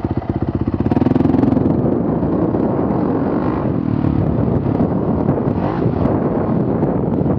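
Honda CRF450 dirt bike's single-cylinder four-stroke engine chugging at low revs, then opening up about a second in as the bike pulls away and runs on along the trail under throttle.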